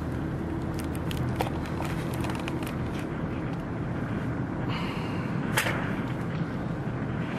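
Road and engine noise inside a moving car's cabin, a steady hum, with a run of small clicks and knocks about one to three seconds in and a sharper knock about five and a half seconds in.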